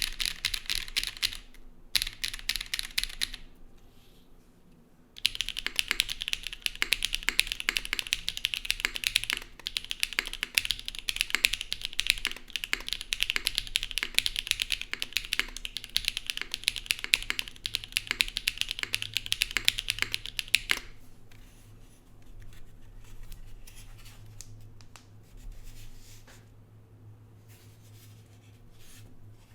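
Zoom75 gasket-mounted mechanical keyboard, carbon fiber plate with no foam, Owlab Neon switches and GMK Sparta keycaps, being typed on fast: two short bursts, a brief pause, then steady rapid typing until about two-thirds of the way through, after which only a few faint scattered taps remain.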